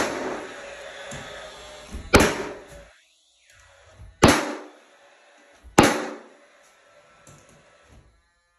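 Paslode cordless finish nailer firing nails one at a time into a door jamb: a shot right at the start, then three more about two seconds apart, each a sharp bang with a short ringing tail. The jamb is being tacked in place.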